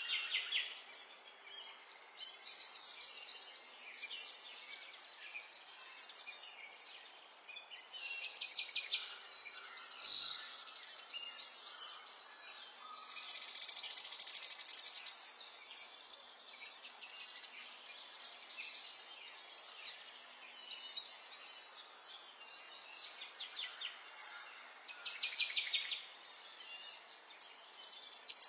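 Several small songbirds singing at once, fast high trills and chirps overlapping in phrase after phrase over a faint hiss.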